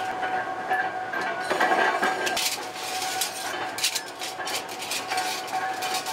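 Steel homi (Korean hand-hoe) blanks clinking and clattering against each other and the tongs as they are handled, many short metallic clinks over a steady machinery hum.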